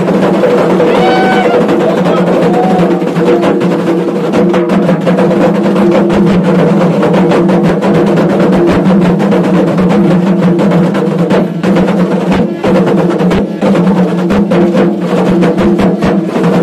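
Several hand-held frame drums beaten together by a group in a fast, dense, steady rhythm.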